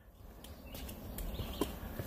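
Footsteps on a wooden boardwalk: hollow knocks of shoes on the planks, starting faint and growing louder over the first second.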